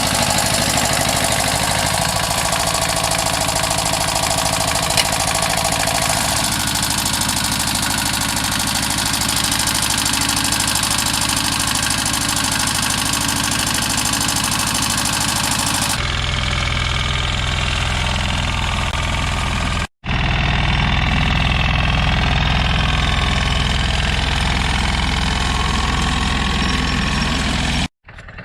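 Small walk-behind tractor engines running steadily, heard in several successive clips, with abrupt cuts about sixteen, twenty and twenty-eight seconds in where the engine sound changes.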